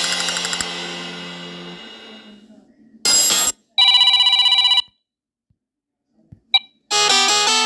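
Phone ringtones played one after another. A tune fades out, then comes a short loud burst, then about a second of rapidly trilling electronic ring. After a brief blip, a new electronic ringtone melody starts near the end.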